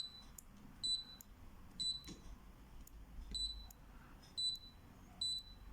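Touch control panel of a Hisense H410BS-WD fridge-freezer beeping as its fridge temperature setting is stepped through. There are six short, high beeps, roughly a second apart.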